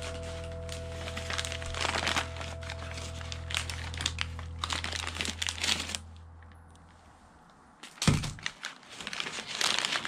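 A paper snack bag and the individual plastic wrappers of walnut cakes (hodu-gwaja) crinkling in repeated bursts as they are handled, loudest about eight seconds in. Soft background music plays underneath and fades out about seven seconds in.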